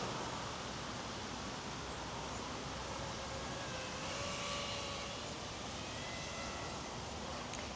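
Faint whine of a 7-inch FPV quadcopter's motors and props as it flies, the pitch sliding up and down with throttle, over a steady outdoor hiss.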